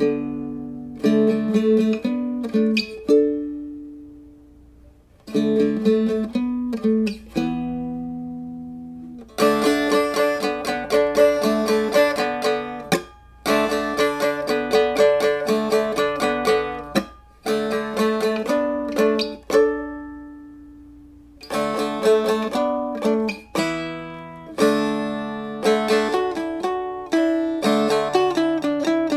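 Instrumental music on a plucked string instrument: phrases of picked notes that ring out and fade. One phrase dies away almost to nothing about four seconds in before the playing picks up again.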